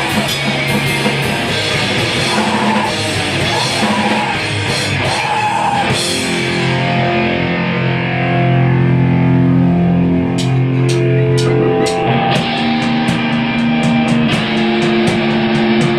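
Screamo/crust hardcore band playing live, with distorted electric guitar and drum kit. About six seconds in, the drums and cymbals drop out and held guitar chords ring alone, then single cymbal hits come back in and the full band resumes near the end.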